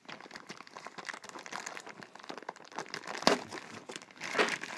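Thin clear plastic wrapping crinkling and crackling as hands unwrap a small plastic toy train wagon, with sharper crackles a little past three seconds in and again near the end.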